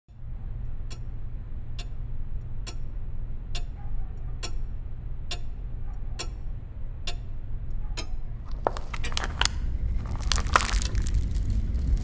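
Mantel clock ticking slowly, about one tick a second, over a low steady hum. From about nine seconds in, a growing run of crackles and cracks comes in as the clock's glass face warps.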